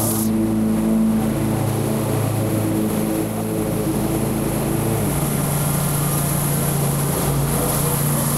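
Small gasoline engine of lawn equipment running steadily under load. Its pitch dips about halfway through and rises again near the end.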